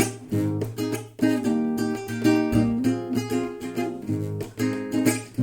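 Acoustic guitar playing a chord pattern, each chord struck sharply and left ringing.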